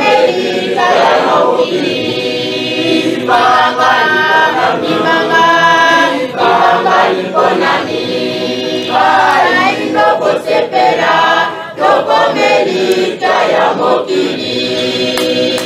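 A choir of many voices singing, phrase after phrase with short breaks between.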